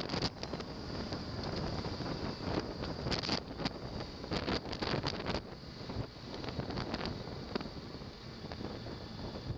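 Wind buffeting the microphone of a camera on a moving motorcycle, over the bike's engine and road noise. The crackling gusts are thickest in the middle.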